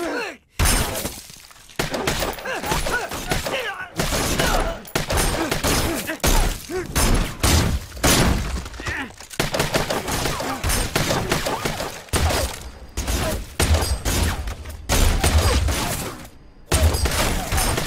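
Action-film gunfight: repeated gunshots and bullet impacts with shattering and debris, in dense runs broken by a couple of brief lulls.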